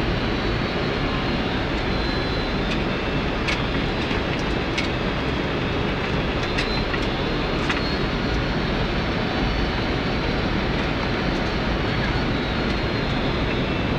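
Steady rushing airflow and engine noise in a Boeing 767 cockpit on approach to land, with a faint high whine and a few light ticks.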